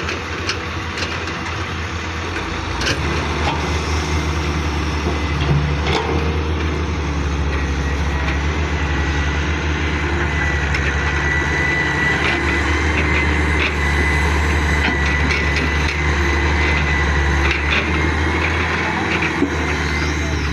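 Hitachi hydraulic excavator's diesel engine running, growing louder about three seconds in as it works, with a steady high whine through the middle and a few sharp knocks.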